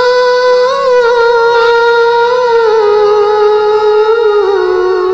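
Wordless vocal humming on one long held note with slight wavers, dropping a little in pitch about four and a half seconds in. It is the closing note of a devotional song, fading out right after.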